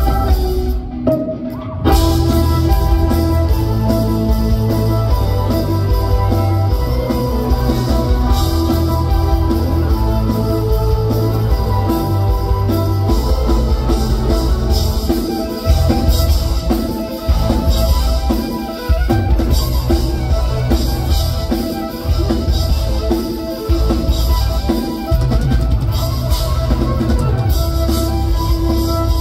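Live instrumental band music from the audience: violin over electric guitar and a drum kit, loud, with heavy bass. The band cuts out for about a second near the start, then comes back in full.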